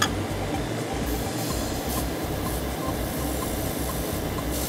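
Spray-booth extractor fan and Iwata Neo Air mini diaphragm compressor running steadily, with short hisses of air from the airbrush a few times; a sharp click at the very start.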